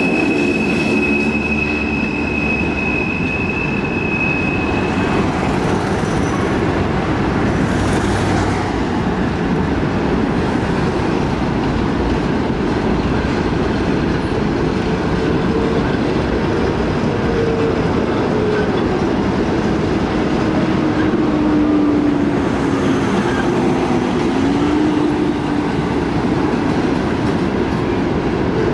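Freight train cars rolling past steadily on the rails. A high, steady wheel squeal for the first five seconds or so, and fainter, lower squeals come and go later on.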